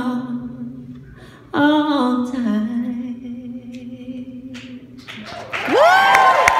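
Female singer holding the closing notes of a country ballad unaccompanied through a microphone: two long sung notes, each fading away. Near the end the audience breaks into cheering, a loud whistle and applause.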